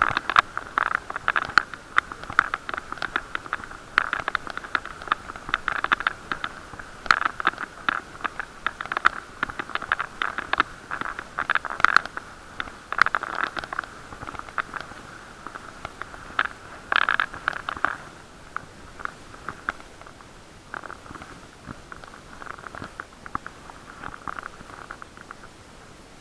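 Muffled, irregular crackling and clicking over a steady hiss, as heard through an action camera's waterproof case; it thins out and gets quieter after about 18 seconds.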